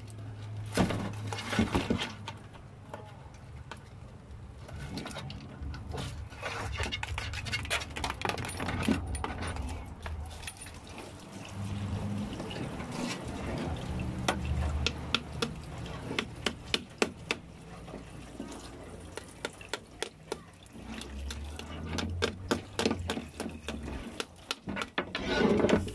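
Live mud crabs and a kitchen knife being handled on a cutting board: scattered clicks, taps and scrapes of shell, claws and blade against the board, coming irregularly and in quick clusters.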